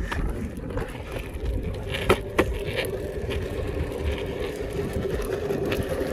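Longboard wheels rolling over asphalt: a steady rumble with a few sharp clicks, the loudest about two seconds in.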